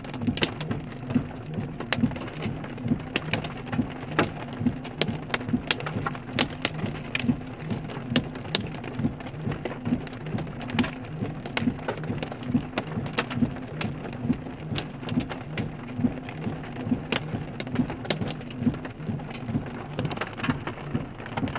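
Hail and heavy rain pelting a car's roof and windows, heard from inside the cabin: a steady drumming with many sharp, irregular knocks from large hailstones.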